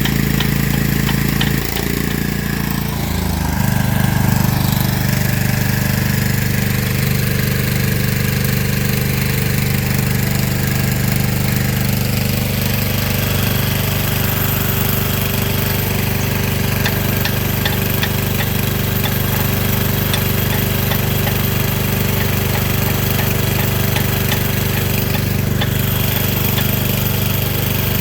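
Diesel engine running steadily at a constant speed, with a brief shift in its pitch about two to three seconds in.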